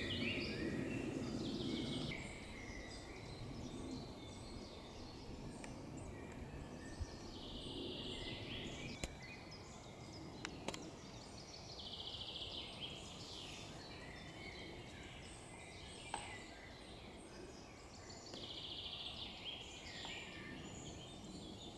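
Birdsong: a songbird sings a short trilled phrase three times, several seconds apart, with other birds calling faintly between. A few light clicks are also heard.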